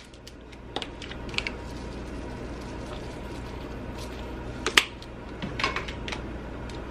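A few small sharp clicks and taps of spice containers being handled and shaken over the salad bowl, the loudest a little under five seconds in, over a steady low hum.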